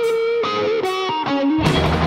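Rock music: a lead electric guitar plays a held note, then a few notes stepping downward, with almost no bass under it; the bass and full band come back in near the end.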